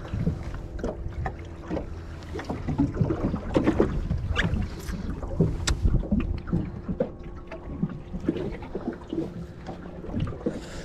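Wind buffeting the microphone and water against a small boat's hull, with irregular knocks and clicks from a fishing rod and reel being handled.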